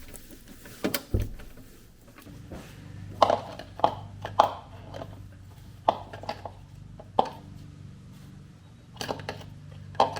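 Irregular sharp clicks and knocks of hand tools and metal parts being handled during an oil change, over a faint steady low hum.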